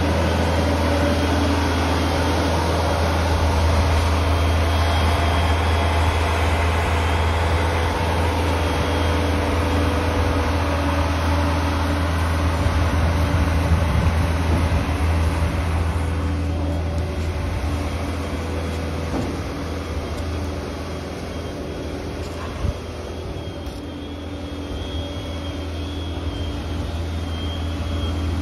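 Engine of a boatyard travel lift running steadily, a low drone that eases somewhat about two-thirds of the way through.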